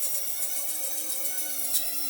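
Background music over a power tool working metal: a steady machine whine with a dense high hiss.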